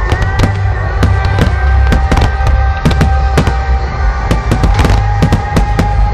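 Fireworks display: aerial shells bursting in quick succession, several sharp bangs a second, over music with long held notes.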